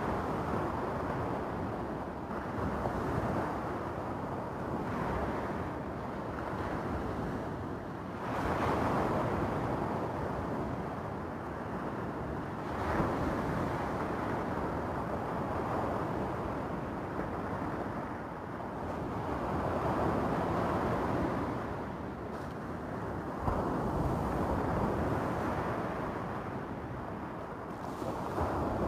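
Small sea waves breaking on a beach of rounded stones and washing back, a steady surf noise that swells each time a wave comes in, every few seconds.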